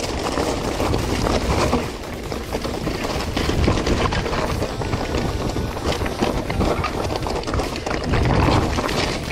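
Lapierre Zesty AM full-suspension mountain bike descending a rocky trail: tyres crunching over loose stones, with constant knocks and rattles from the bike over the bumps and wind buffeting the camera microphone.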